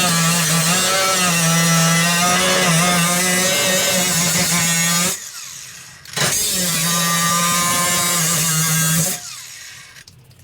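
A handheld power tool running at full speed in two runs, the first about five seconds long and the second about three, each with a steady pitch. After the second run the sound fades out as the tool spins down.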